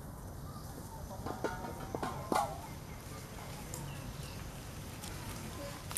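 A few short animal calls and clicks in quick succession, about one and a half to two and a half seconds in, over a steady outdoor background.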